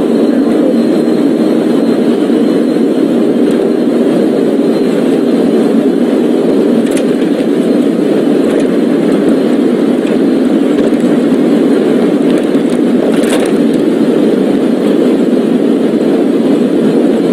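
Steady, loud road and engine noise of a police car being driven, unchanging throughout, with faint clicks about 7 and 13 seconds in.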